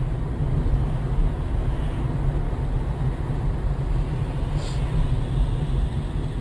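Steady low rumble of a moving car's engine and road noise.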